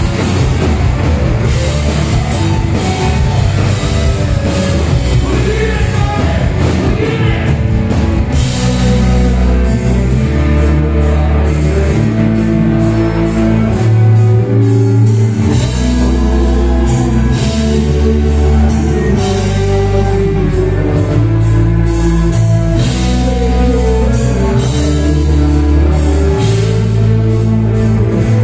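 A live rock band playing loud through the stage sound system: electric guitars, bass and drums with singing, at a steady beat.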